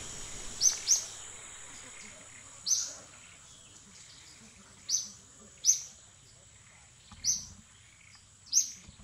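A bird chirping: short, sharp, high chirps, about seven of them at uneven intervals, some in quick pairs, over a faint steady high-pitched hum.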